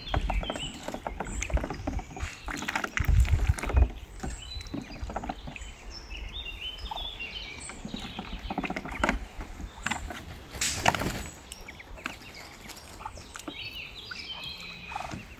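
Domestic ducks and ducklings calling around a water tub: many short high peeps with scattered clicking pecks, and one brief loud rush of noise about eleven seconds in.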